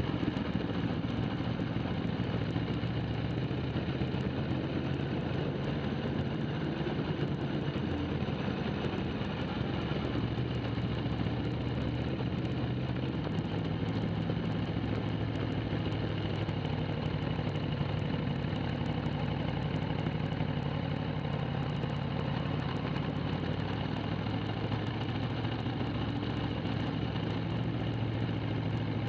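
Motorcycle engine idling steadily, with a small change in pitch about thirteen seconds in.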